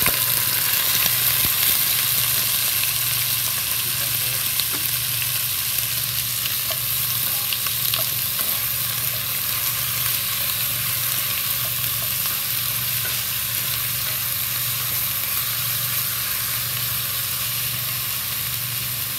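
Raw chicken thigh pieces with shallot, garlic, ginger and chiles sizzling in hot oil in an enameled cast-iron Dutch oven while being stirred with a wooden spoon: a loud, steady sizzle that eases off a little over time, with a few faint ticks.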